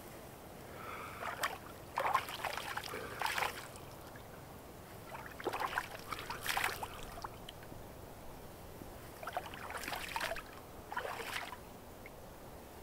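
Lake water scooped up in cupped hands and splashed onto a face, with dripping and trickling, in four bouts of splashing a few seconds apart.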